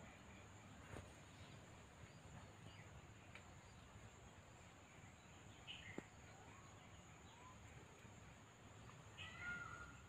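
Quiet garden ambience: faint bird calls a few times, clearest near the end, over a steady high-pitched hum, with a couple of soft clicks.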